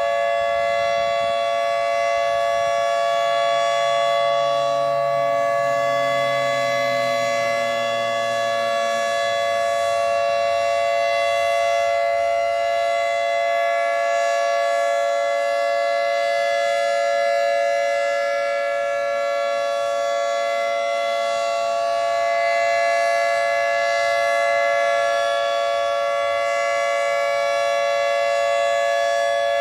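Federal Signal 2T22 dual-tone outdoor warning siren sounding a steady two-tone chord, its pitch held unchanging and its level swelling and easing slightly. A steady tone like this is the Alert signal, used for tornado warnings.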